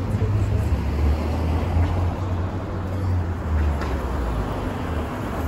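City street traffic noise: a steady low rumble of passing vehicles.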